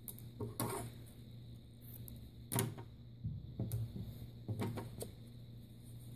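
Handling sounds as a wooden craft-stick cross wrapped in yarn is worked by hand on a wooden table: four or five light knocks and clicks, the loudest about two and a half seconds in, over a steady low hum.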